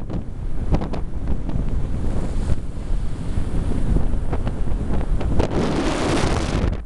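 Wind buffeting the microphone of a camera in a moving car, a heavy steady rumble with road noise under it and a few sharp clicks in the first second and a half. Near the end the rushing grows louder for about a second, then cuts off.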